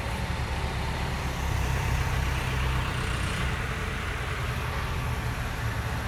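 Diesel engine of a Case Super K backhoe loader running steadily under load as the backhoe arm lifts a long pole, a low rumble that swells a little for a second or two about a second and a half in.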